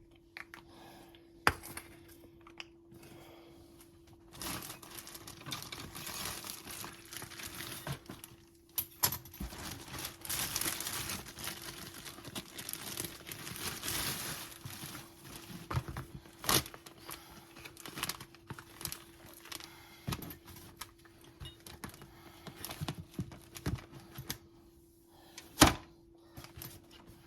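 Packaging crinkling and tearing in irregular spells of rustling, with a few sharp knocks, the loudest near the end. A faint steady hum runs underneath.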